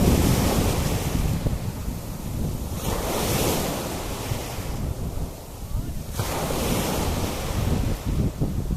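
Sea waves breaking and washing up the beach, the surf swelling in surges about every three seconds, with wind buffeting the microphone as a steady low rumble.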